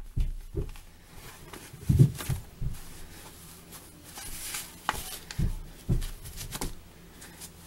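Cotton fabric strips rustling and rubbing as hands roll and wrap them into a bundle, with scattered soft thumps from the handling.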